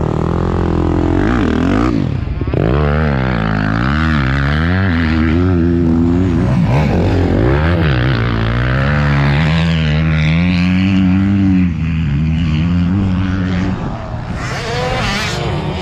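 Motocross dirt bike engine running, its pitch rising and falling again and again as the throttle is blipped. Near the end the engine note gives way to a rushing hiss.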